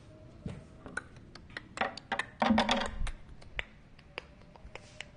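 Phone being picked up and handled: a run of irregular clicks and knocks, with a louder rustling clatter between about two and three seconds in.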